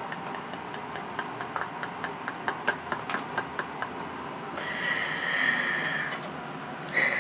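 A young kitten's claws clicking on the bars of a wire cage as she climbs, a few clicks a second. Then one long, high-pitched, steady kitten meow lasting about a second and a half, and a short meow near the end.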